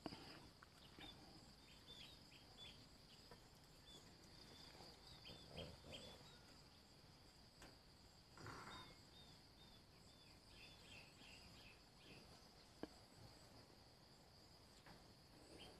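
Near silence with a faint steady insect drone and many short, faint chirps. There are a couple of soft knocks about five and eight seconds in, and a single click near the end.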